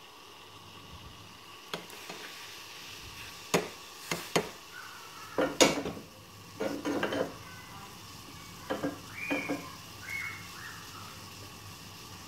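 A spoon knocking and scraping against cookware in about a dozen short clinks, a few of them ringing briefly, over a steady faint hiss.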